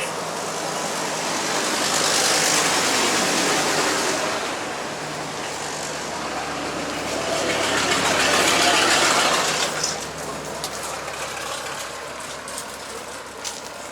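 Road traffic: two vehicles pass by in turn, each swelling up and fading away, the second about six seconds after the first.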